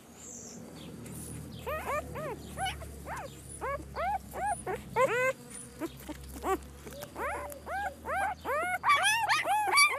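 Newborn puppies, eyes not yet open, whining and crying in a string of short high-pitched rising-and-falling cries, several voices overlapping. The cries begin about two seconds in and come thickest near the end.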